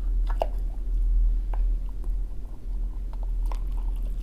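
Wooden spoon scraping and scooping thick, oily buckwheat out of a glass jar into a glass bowl: soft wet scrapes with a few light clicks of wood against glass, over a steady low hum.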